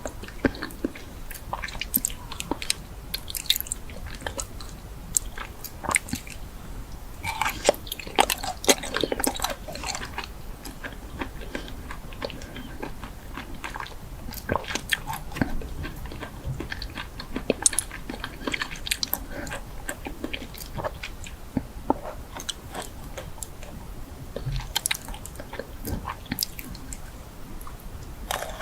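A person biting and chewing crunchy food, a run of irregular crackling crunches, thicker in a few spells.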